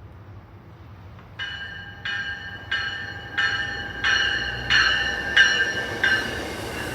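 Railway bell ringing in an even rhythm, about three strokes every two seconds, starting about a second and a half in and stopping near the end.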